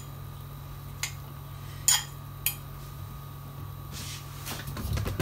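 Utensil clinking against a glass bowl of filling: three light clinks, the middle one ringing briefly, over a steady low hum. Soft handling noise near the end.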